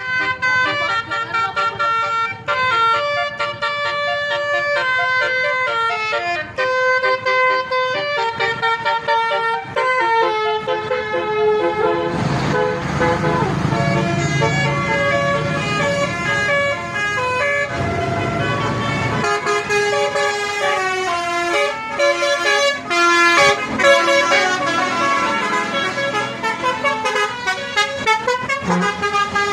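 Telolet musical bus horns from several buses, playing quick tune-like runs of notes one after another. From about 12 to 19 s a bus engine's low rumble runs under the horns.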